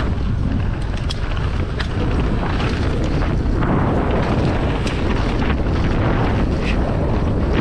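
Wind buffeting the microphone and tyre rumble as a mountain bike is ridden fast down a dirt jump line, with a few sharp clicks and rattles from the bike.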